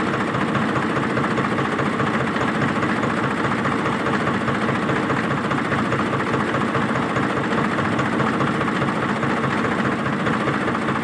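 Yanmar combine harvester's diesel engine running steadily under load while harvesting rice paddy in deep mud.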